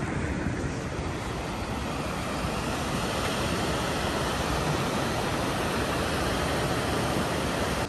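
Low-flying jet aircraft, taken for an RAF plane, heard as a steady roaring rush of noise that swells slightly midway.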